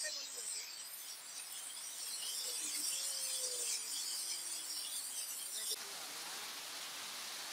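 Hailstones falling thickly and clattering on a paved street and tiled pavement, a dense high-pitched patter of ice hitting hard ground. About six seconds in, the sound changes suddenly to a smoother, steady hiss.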